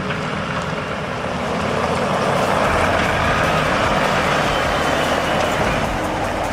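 A heavy vehicle's engine running steadily, growing louder about two seconds in.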